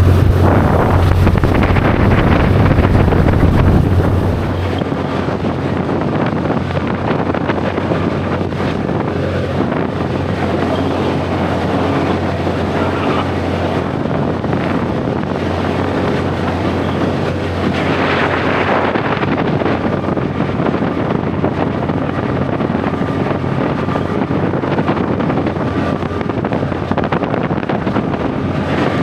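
Boat engine running steadily, with wind on the microphone. It is louder for the first four seconds, then settles to an even hum.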